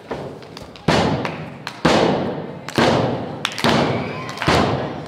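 Five heavy thuds, about one a second, each ringing on briefly afterward: impacts on a wrestling ring.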